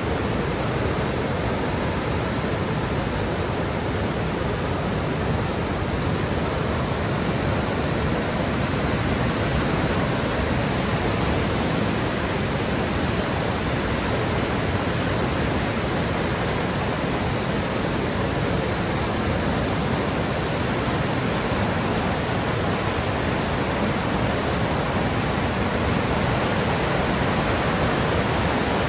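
The Niagara River's class 6 whitewater rapids rushing: a steady, unbroken sound of churning water.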